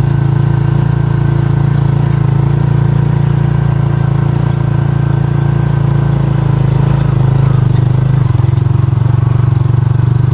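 Small motorcycle engine running steadily at low speed, close by. The engine note shifts slightly about eight seconds in.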